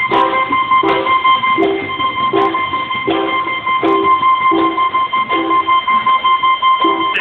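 Recorded dance music: a keyboard riff repeating about every 0.7 seconds over a steady beat, with a high held tone throughout. The sound is dull, with no treble.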